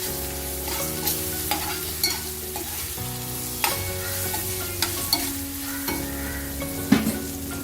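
Potato and brinjal pieces frying in hot oil and sizzling as they are stirred in the pan. The stirring utensil scrapes and knocks against the pan in irregular sharp clicks, the loudest near the end.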